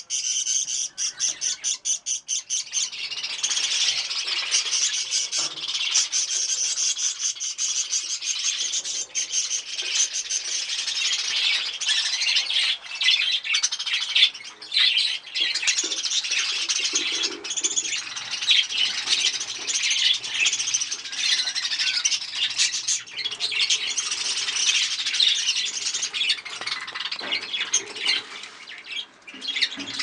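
Budgerigars chirping and chattering without a break, a dense run of high chirps and squawks. In the first few seconds it comes as a rapid string of short chirps.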